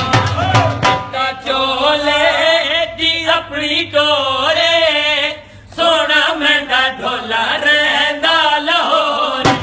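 A voice singing an ornamented, wavering melody. Dhol beats sound in the first second, then stop and the voice carries on alone, with a short break about halfway through.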